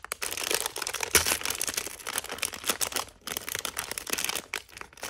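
Plastic blind bag crinkling and tearing as it is pulled open by hand: a dense run of crackles, with a sharper crack about a second in.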